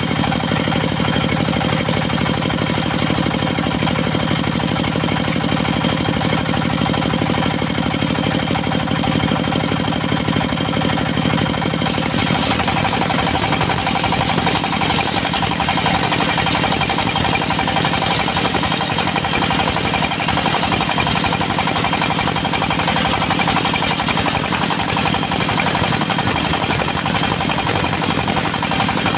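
Diesel engine of a portable circular-saw sawmill running steadily with a fast, even knock. About twelve seconds in, the sound turns brighter and harsher, with less low rumble.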